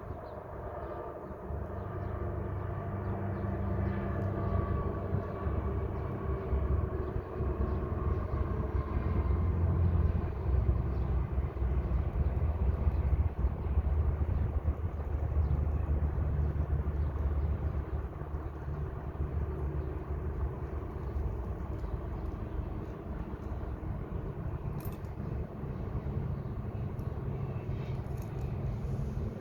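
Heavy vehicle noise: a steady low rumble that swells over the first ten seconds or so and eases off a little after about seventeen seconds, with faint higher tones in the first part.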